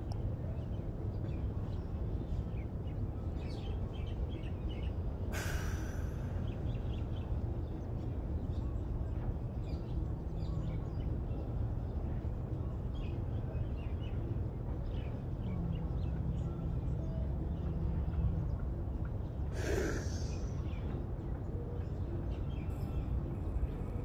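Outdoor beach ambience: a steady low rumble with scattered faint bird chirps, and two short breathy rushes about five seconds in and near twenty seconds.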